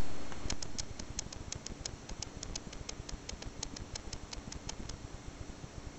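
A rapid series of light ticks, about five a second, stopping near the end, with a low steady hum in the first second or so.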